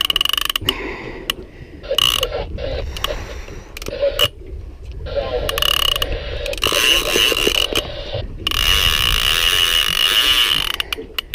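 Large conventional fishing reel buzzing and ratcheting in bursts, its drag giving up line to a hooked bull shark. The longest, steadiest run of buzzing comes in the last few seconds.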